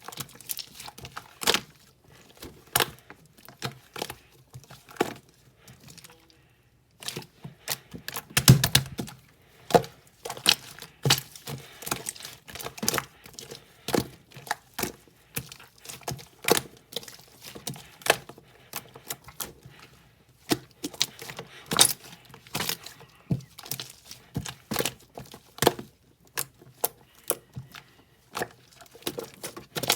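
Close-up handling noise: a dense run of irregular sharp clicks and crackles, with a short near-silent pause about six seconds in and a heavier knock about eight seconds in.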